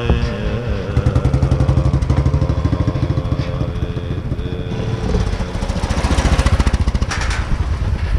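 Royal Enfield single-cylinder motorcycle engine running at a steady pace with an even, rapid beat, with a stretch of rushing noise over it about six to seven seconds in.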